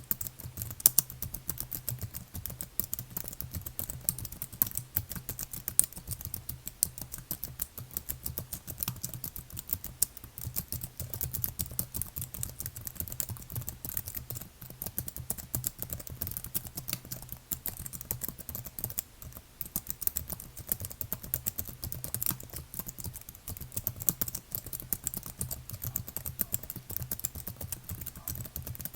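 Continuous fast typing on a computer keyboard: a dense stream of key clicks with now and then a louder key strike. A steady low hum lies underneath.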